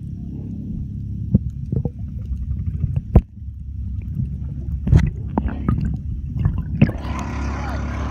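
Underwater sound picked up by a submerged phone: a muffled low rumble with several sharp clicks and knocks. About seven seconds in, the phone breaks the surface, and the sound opens up into the hiss and slosh of water at the surface.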